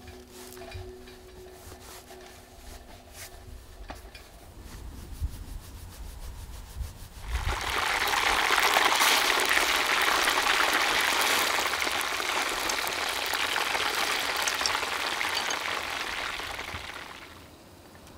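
Dough ball frying in a small pot of hot oil on a camping gas stove: a loud, steady sizzle that starts about seven seconds in, after a few soft knocks, and stops shortly before the end.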